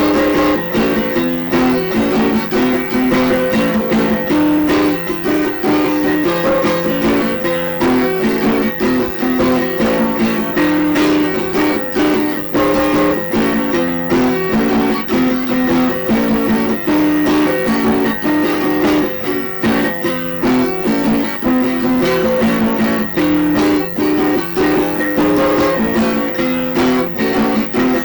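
Instrumental guitar music: a busy run of plucked notes over a steady low held tone.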